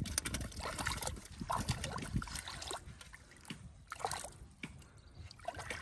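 Shallow muddy water splashing and sloshing as legs wade through it and hands grope in it, in short irregular splashes.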